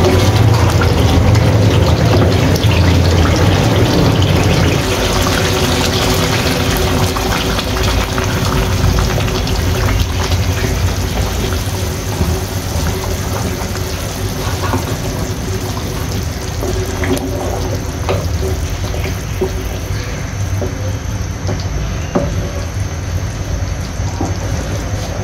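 Water poured into a hot pan of frying beef curry, loudest in the first few seconds, then the thinned curry bubbling and sizzling as it comes back to the boil.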